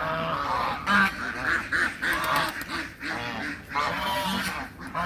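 Backyard poultry calling: many short, pitched honking and quacking calls repeat and overlap throughout.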